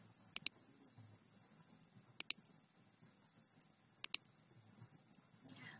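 Computer mouse clicks: three quick pairs of clicks about two seconds apart.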